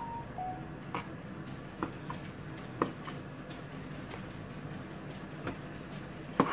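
Kitchen knife cutting mushrooms on a plastic cutting board: a handful of sharp knocks as the blade hits the board, unevenly spaced, the loudest near the end, over a steady low hum.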